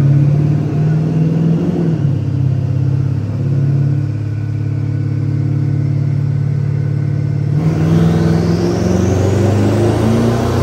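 Twin-turbocharged 5.0 Coyote V8 of a 2017 Mustang running steadily on a chassis dyno. About seven and a half seconds in it starts a pull: the engine note climbs, with a high whine rising sharply over it as the turbos spool.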